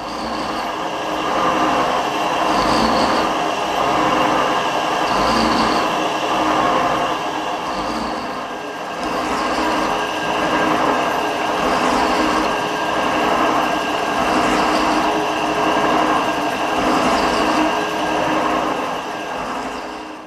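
Metal shaper taking cuts across a steel vise jaw: a steady machine whine with the cutting noise swelling and easing in a regular cycle about every two seconds as the ram strokes back and forth.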